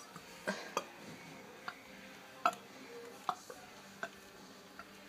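Quiet room with a handful of short, sharp clicks and taps at irregular intervals, roughly one a second.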